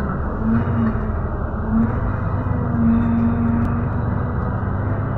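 Engine drone and road noise of a road vehicle driving slowly, heard from inside, with a low hum that swells briefly a few times.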